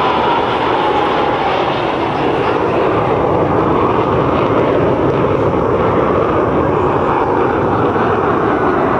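Jet noise from a Belgian Air Force F-16 Fighting Falcon's Pratt & Whitney F100 turbofan, a loud steady rumble as the fighter flies its display. A whine falls in pitch over about the first second as the jet passes.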